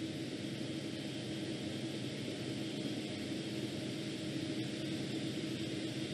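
Steady hum and hiss of a space station module's ventilation fans and equipment, with a constant low tone; the cloth being wrung makes no sound of its own.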